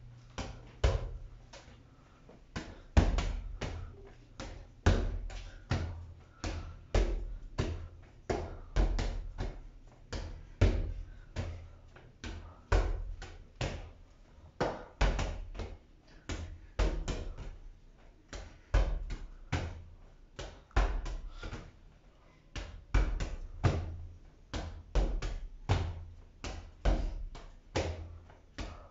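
A ball repeatedly volleyed against a wall with forearm passes and finger sets: a steady run of sharp thuds, about two to three a second, as the ball strikes the wall and then the arms or hands.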